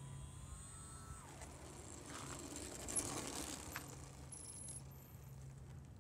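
Small electric RC airplane's motor whining faintly, then winding down about a second in as the throttle is cut for landing. The plane then touches down and its wheels rattle and roll on asphalt, with a sharp clack about three seconds in.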